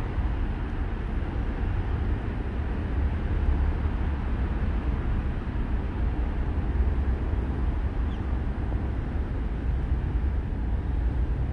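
Steady low outdoor rumble, heaviest in the deep bass, with no distinct sounds standing out.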